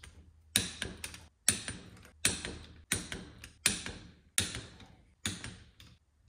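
Torque wrench clicking on the small crankcase bolts of a Rotax 787 engine as they are torqued to 17 foot-pounds: about nine sharp clicks, one roughly every three quarters of a second, each with a short rattling tail.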